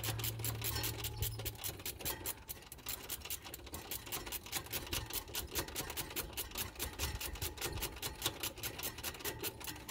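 Hand ratchet clicking rapidly and evenly, about six clicks a second, as it backs out the half-inch idler pulley bolt.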